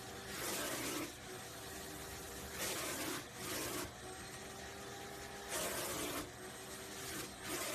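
Vacuum cleaner running with a steady hum while its hose nozzle is drawn along a dog's fur; the suction rushes louder in about five strokes as the nozzle passes over the coat.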